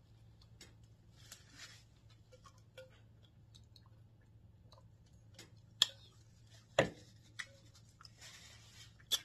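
Close-up eating sounds: soft chewing and small scattered clicks, with a few sharper clicks and one louder knock about two-thirds of the way through.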